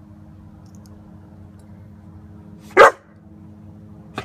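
German Shepherd puppy barking: two short, loud barks, one about two and a half seconds in and another right at the end.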